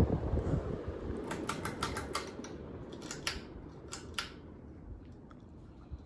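A 44-inch Craftmade CXL ceiling fan with a 188x15 mm motor running fast, its steady rush of air fading as the microphone draws away from the blades. About a dozen light clicks come in quick succession in the middle.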